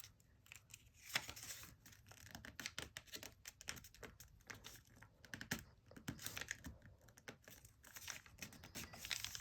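Origami paper being handled and refolded by hand: faint, irregular crinkling and crackling, with many small sharp clicks as the folds are pressed and reworked.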